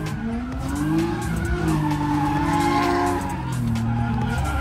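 Drift car engines revving, the pitch climbing and dropping several times as the cars slide, with tire noise underneath.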